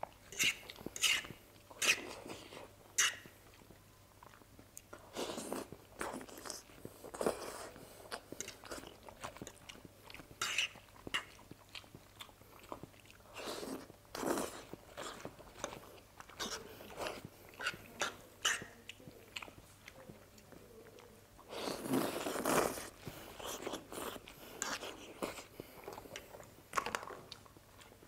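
Close-miked eating of masala Maggi noodles from a fork: wet chewing with sharp mouth clicks and smacks, broken by several longer noodle slurps, the longest about three-quarters of the way through.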